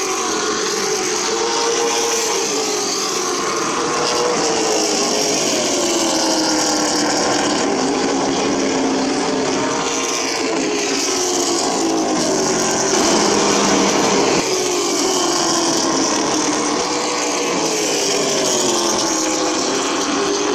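Short-track stock cars racing by in a pack, several engines at full throttle whose pitch keeps sliding down and back up as they lap past and go through the turns.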